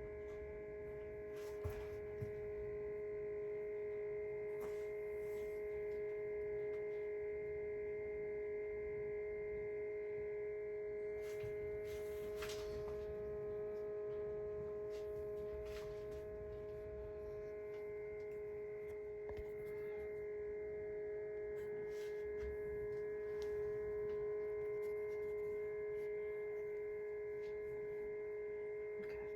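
Steady electrical hum made of a few held tones that never change, with a couple of faint clicks about two seconds in.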